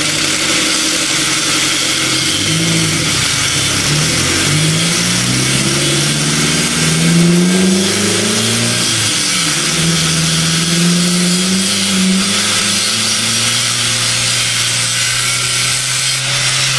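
Electric angle grinder cutting a shallow groove all the way around a steel propane cylinder: a steady, loud grinding hiss of disc on steel, with the motor's pitch wandering up and down.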